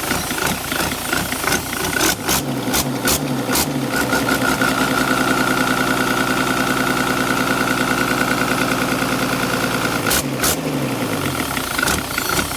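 Diesel engine with a Holset HX50 turbocharger, revved up and held steady at higher revs, then let fall back. A steady high whistle from the turbo runs under the engine note. Short bursts of hiss come as the revs rise and again as they drop, heard while the turbo is being tested for a leak.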